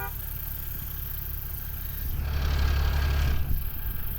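A truck's engine idling with a steady low rumble, joined about two seconds in by a loud hiss that lasts about a second and a half.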